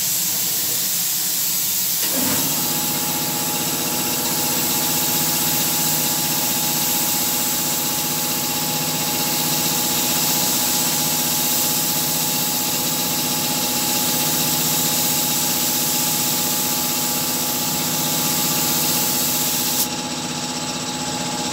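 HVLP spray gun hissing steadily as it sprays acrylic primer, the air cutting off near the end. About two seconds in, a motor starts and hums steadily underneath.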